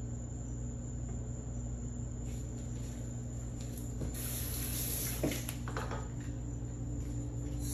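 A steady low hum, with a brief soft hiss and a couple of light taps around the middle.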